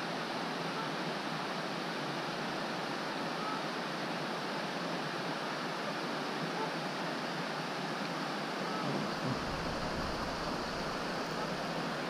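Steady rush of river water pouring over a weir. About nine seconds in, a low rumble joins it underneath.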